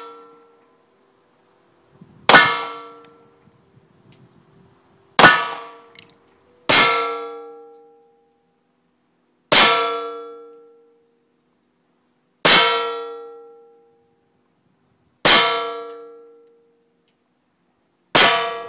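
Seven pistol shots a few seconds apart, each a sharp crack followed by the ringing clang of the metal bullet-trap box behind the target, dying away over about a second.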